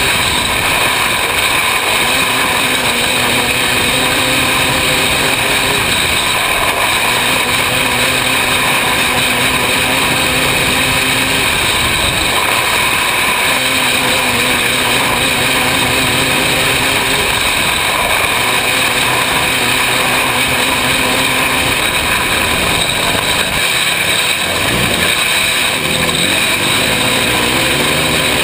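Open 500cc micro sprint car engine racing at high revs, heard loud from on board. The revs dip and climb again and again, with a deeper drop and climb back near the end.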